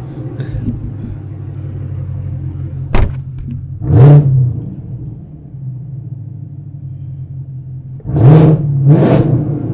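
Chevrolet Camaro ZL1's supercharged 6.2-litre V8 idling through a loud aftermarket cat-back exhaust. It is blipped in a short throttle rev about four seconds in and twice more near the end. A single sharp crack sounds about three seconds in.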